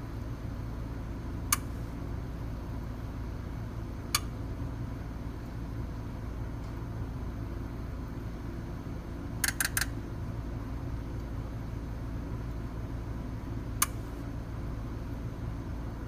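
Sharp clicks from a diesel's fuel injectors during a scan-tool buzz test: single clicks a few seconds apart and a quick run of four about halfway through, over a steady low hum. By ear only cylinders 3 and 5 seem to be buzzing, which the mechanic takes as a sign of weak injectors on a hard-starting engine.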